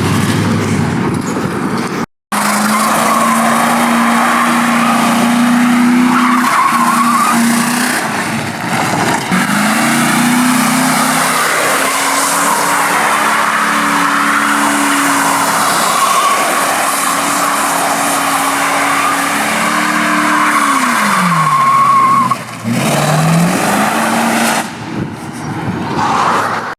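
Ford Grand Marquis's 4.6-litre V8 revving hard while the car spins donuts on a welded rear differential, with the rear tires squealing and scrubbing continuously. The engine revs rise and fall, then drop away sharply near the end before a short rise.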